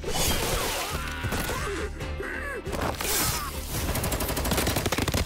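Rapid gunfire from a long gun, many shots a second, starting about three and a half seconds in, over background music; before it, voices crying out.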